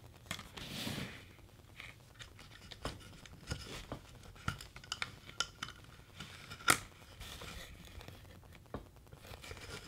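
Gloved hands working thin picture-hanging wire through a metal D-ring on a wooden canvas frame: faint rustling and scraping with scattered light clicks, and one sharper click a little under seven seconds in.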